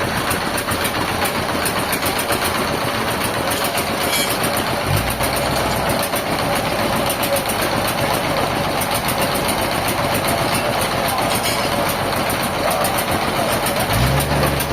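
A motor vehicle's engine running amid steady mechanical noise, with a deeper engine note coming in near the end.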